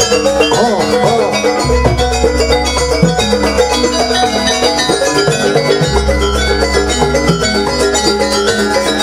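Live jaranan dance music from a Javanese gamelan-style ensemble: many short, fast pitched metallic notes in repeating patterns. A deep low drone drops out near the start and again about six seconds in.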